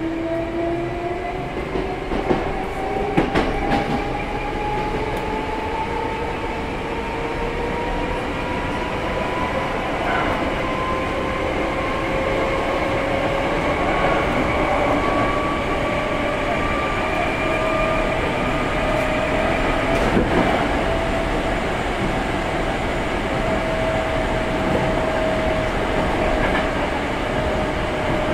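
Running sound inside a Hankyu 6300 series electric train car: the whine of the traction motors and gears rises steadily in pitch as the train gathers speed, then levels off and eases slightly near the end. Underneath is a constant rumble of wheels on rail, with a few sharp clacks over rail joints about three seconds in and again around twenty seconds.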